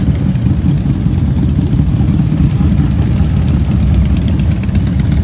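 Engines of many cruiser and touring motorcycles idling together in a line, a steady low drone with no single bike standing out.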